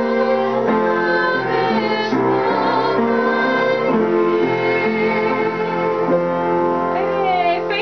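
A woman singing in a classical, operatic style with piano accompaniment, holding long notes with vibrato. Near the end the voice sweeps upward in a quick run.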